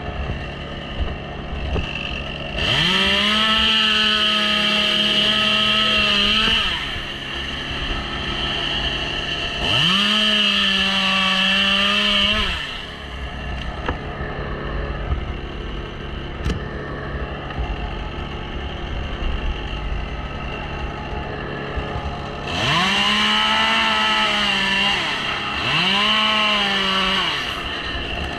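Two-stroke chainsaw revved to full throttle four times, each burst lasting about three to four seconds with a quick rise in pitch, and idling in between.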